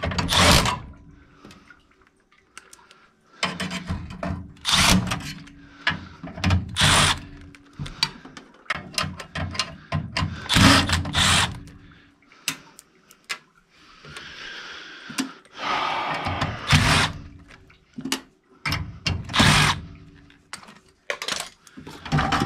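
Cordless drill-driver run in short bursts, among clicks and clanks of hand tools against furnace sheet metal and fittings.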